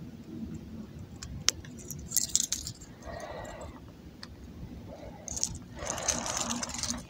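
Small scattered clicks and rattles of fishing tackle being handled as weeds are picked off the lure, with two short stretches of soft rustling.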